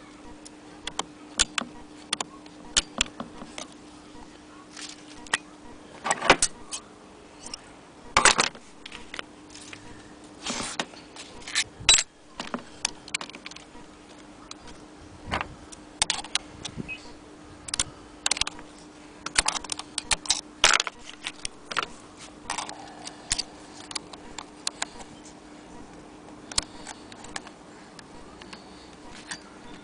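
Metal parts of an 1870 Maxfield Agenoria sewing machine being handled and adjusted: irregular clicks, taps and short metallic rattles, with a faint steady hum underneath.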